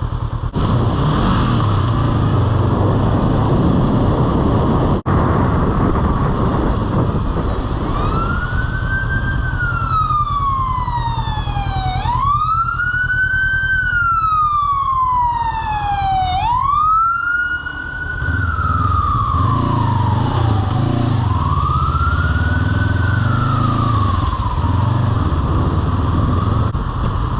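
Emergency vehicle siren wailing in four slow sweeps, each rising quickly and falling slowly, heard over the steady engine and wind noise of a motorcycle being ridden.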